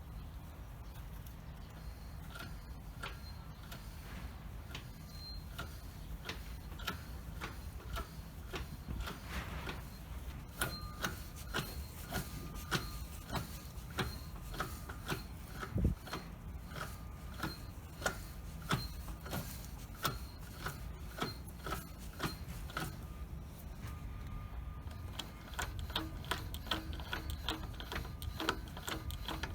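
Honda Zest (JE1) kei car on the move with a low rumble of running, over which a regular clacking and squeaking repeats about one and a half times a second. This is the abnormal noise the car makes while driving, traced to a fault underneath.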